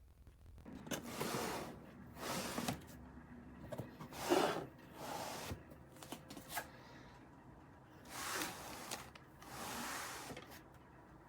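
Handling noises: about six soft swishing, rubbing slides with a few light clicks between them.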